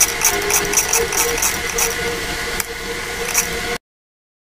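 Original-Odhner pinwheel mechanical calculator being hand-cranked through a multiplication: a quick run of sharp mechanical clicks, about four a second, then two separate clicks. The sound cuts off suddenly near the end.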